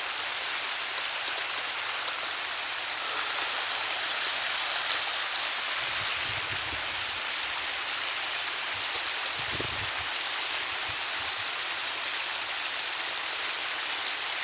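Flowing creek water making a steady rushing hiss, with two faint low thuds about six and nine and a half seconds in.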